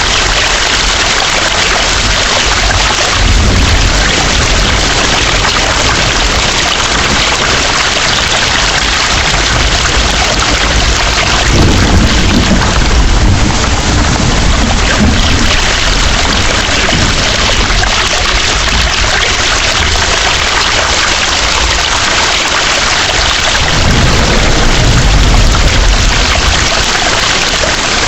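Heavy rain pouring steadily, with low thunder rumbling three times: a few seconds in, a longer roll around the middle, and again near the end.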